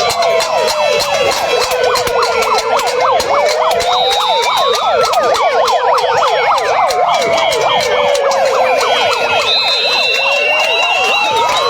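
Many sirens wailing at once, their pitches crossing: a few sweep slowly down and up over a couple of seconds while many others rise and fall rapidly, with sharp clattering clicks throughout. The racket of a protest crowd's noisemakers.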